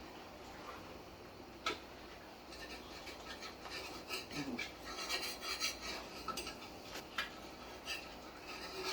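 Metal spoon scraping and stirring around a cooking pot of curry, with a few sharp knocks against the pot and a busy stretch of quick scraping ticks in the middle.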